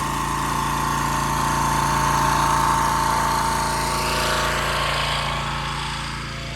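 Pressure washer running steadily, a motor drone with a strong steady whine, growing fainter near the end.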